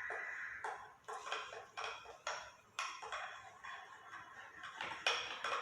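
A spoon knocking and scraping against a kitchen container, with sharp taps about twice a second that ring briefly, as the cucumber, coriander and mint paste is transferred.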